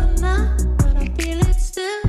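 Background music: a pop/R&B song with a singing voice over heavy bass and a steady beat.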